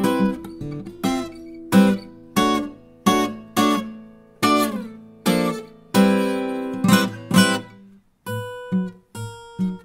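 Acoustic guitar played solo with no singing: full chords struck about every half second, each left ringing, then lighter, sparser single notes in the last couple of seconds.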